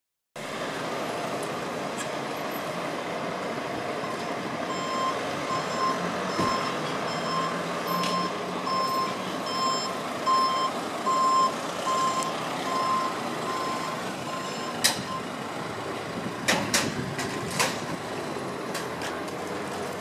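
A vehicle's reversing alarm beeping at a steady pace, a little under one beep a second, starting about five seconds in and stopping about ten seconds later, over steady street noise. A few sharp knocks follow near the end.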